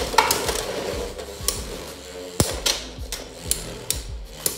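Two Beyblade X spinning tops clashing in a plastic stadium: irregular sharp clacks, several a second, as the tops strike each other and the stadium wall.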